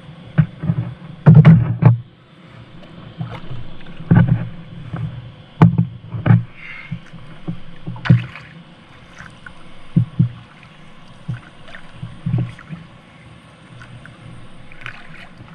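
Kayak paddling: uneven splashes and knocks of the paddle in the water and against the hull, the loudest cluster about a second and a half in.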